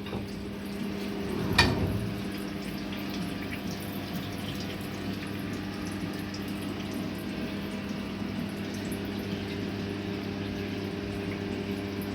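Kunzmann WF7 CNC milling machine running on aluminium with coolant splashing: a steady hum over a wash of liquid noise. One sharp knock about a second and a half in.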